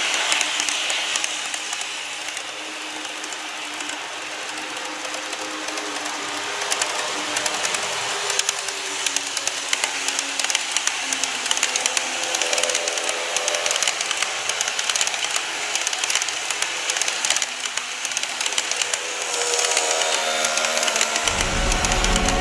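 N-scale model trains running past on sectional track: a fast, continuous clicking of wheels over the rail joints with a faint motor hum. Music comes in near the end.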